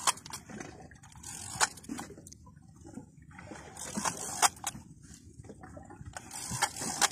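Sea water sloshing and lapping against the hull of a small boat, with several sharp clicks or knocks scattered through it, the loudest moments.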